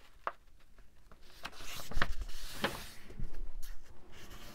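Journal papers being handled and shuffled on a work surface: soft paper rustling with about half a dozen light taps and flicks, the loudest about two seconds in.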